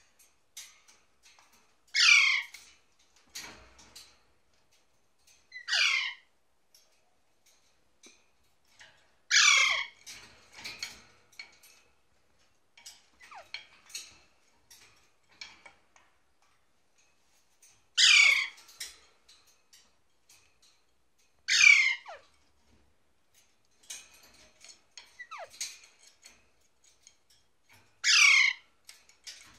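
Alexandrine parakeets squawking: six loud, harsh calls spaced several seconds apart, each about half a second long and falling in pitch, with faint short chirps between them.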